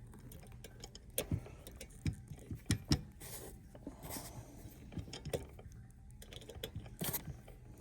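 Scattered small metallic clicks and taps, at irregular spacing, as the bolts on a CB antenna mount are handled and tightened back up, over a faint steady hum.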